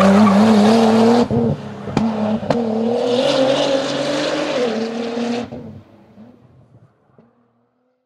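Nissan R35 GT-R's twin-turbo V6 running under load as the car passes at speed, its engine note held fairly steady over a hiss of tyre and wind noise. Two sharp cracks come about two seconds in. The sound then fades away over the last couple of seconds.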